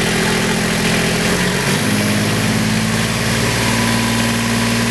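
Fire engine's engine-driven water pump running steadily, building pressure. About a second and a half in, the engine note shifts up and settles at a new, higher steady pitch.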